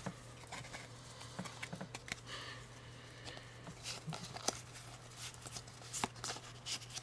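Pokémon trading cards being handled and sorted in the hands: soft rustles and scattered light clicks of card stock sliding and tapping against card stock, over a faint steady low hum.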